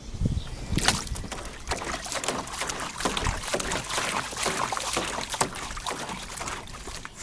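A dog splashing about in shallow water in a pool, with many irregular splashes and sloshes.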